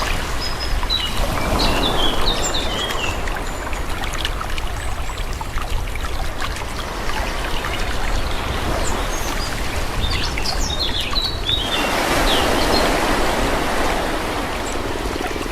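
Calm sea: small waves washing in, swelling near the start and again about twelve seconds in, with birds chirping over the water.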